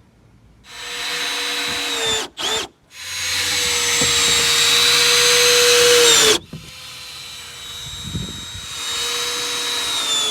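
Handheld power drill running in short trigger bursts. The longest burst lasts about three seconds and winds down in pitch as it stops, followed by a softer, steadier run.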